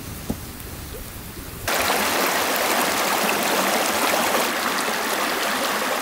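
A wood campfire crackling faintly, then a sudden switch to a forest creek rushing over stones: a loud, steady rush of water that cuts off abruptly at the end.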